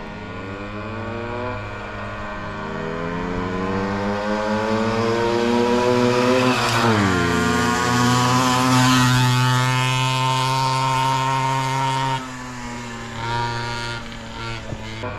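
Two-stroke 50 cc engines of a Balkan 50 moped and a pocket bike, racing and revving higher as they approach. About seven seconds in they pass with a sharp drop in pitch, then hold a lower, steadier note as they pull away. Near the end the engine sound is fainter.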